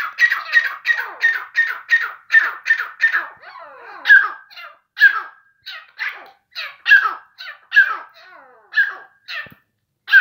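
Grey francolins calling: loud, harsh notes repeated fast, about three a second, for the first three seconds, then loosening into a sparser, uneven series of single calls.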